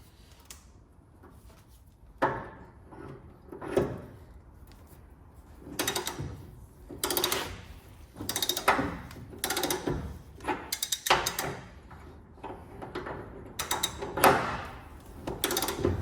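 A slotted steel bolt being wound by hand into a damaged threaded hole to push the old thread out. Two separate knocks come first, then short mechanical tool strokes about once a second from about six seconds in.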